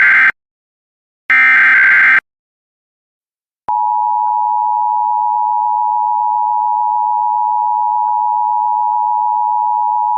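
Emergency Alert System SAME header data bursts: the tail of one burst, then a full burst of about a second, ending about two seconds in. After a pause of about a second and a half, the steady two-tone EAS attention signal (853 and 960 Hz) begins, opening a Required Monthly Test.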